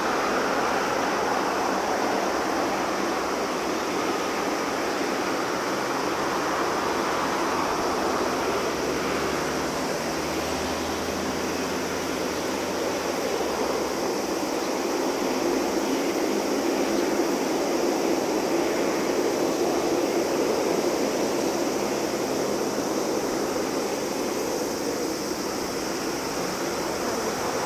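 Steady jet-engine rumble and whine from a Japan Airlines Boeing 787-8's GEnx engines as the airliner rolls slowly along the runway, swelling a little about two-thirds of the way through.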